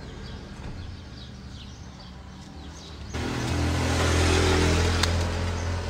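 A motor vehicle engine comes in suddenly about three seconds in and runs with a steady low drone, over faint bird chirps and a low hum.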